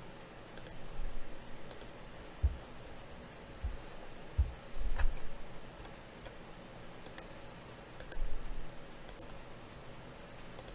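Computer mouse clicking: about ten single clicks spaced irregularly, a few with a dull low thud, while mesh nodes are being picked in simulation software.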